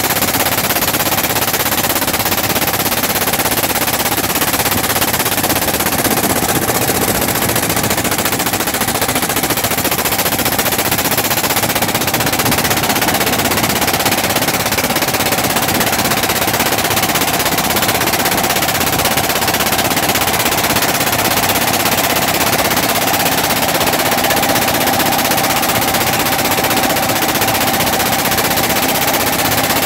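Boat engine running steadily underway: a loud, fast, even clatter with a faint steady hum.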